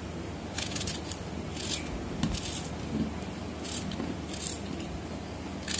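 A small kitchen knife cutting a peeled onion into thick chunks on a plate: short crisp slicing strokes about once a second, the blade now and then scraping the plate.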